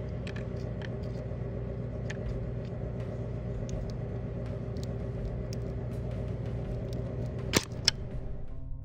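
A steady machine hum, with small clicks of needle-nose pliers gripping and working a glow plug's plastic electrical connector, and two sharp clicks near the end.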